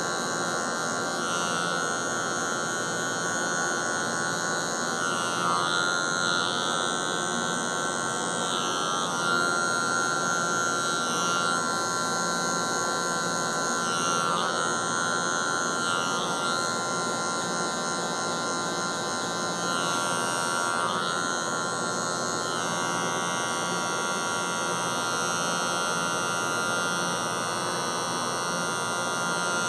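Electric hair clippers running steadily while blending a fade at the nape. The motor's tone shifts every few seconds as the blade is worked through the hair in short strokes.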